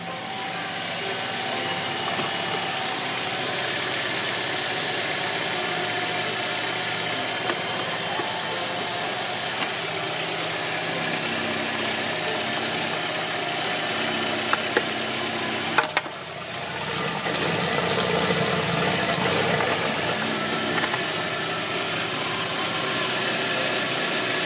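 Audi A4 B5's 1.6-litre ADP petrol four-cylinder engine idling steadily, with a few sharp clicks near the middle.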